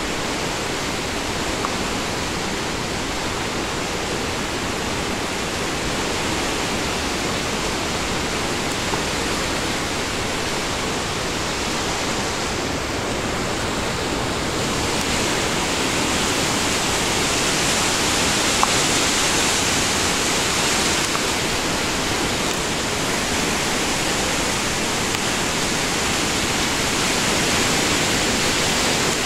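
The Athabasca River's whitewater rushing through a rock gorge: a steady noise of fast water, louder and brighter from about halfway through.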